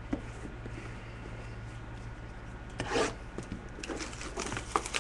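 Trading cards and their packaging being handled: a few brief rubbing, scraping sounds, the strongest about three seconds in and more near the end, over a steady low hum.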